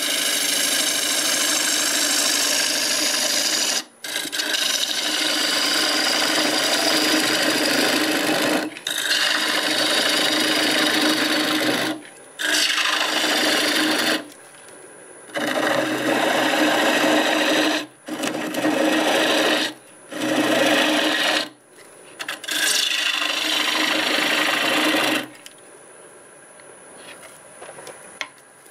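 Half-inch bowl gouge cutting into a spinning mimosa blank on a Laguna Revo 1836 lathe at 800 RPM, hollowing a bowl: a loud, noisy scraping cut in about eight passes of one to five seconds with short breaks between them. In the last few seconds the gouge is off the wood and only the lathe is heard running, much quieter.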